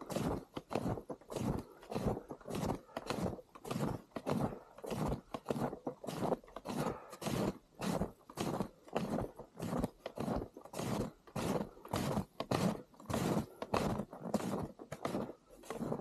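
Footsteps crunching through fresh snow at a steady walking pace, about two steps a second.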